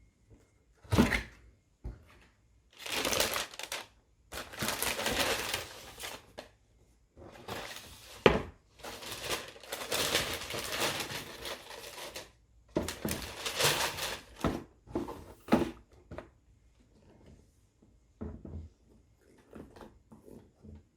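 Paper packing crinkling and rustling in irregular bursts, with a few sharp knocks, as a shoebox of sneakers is unpacked by hand.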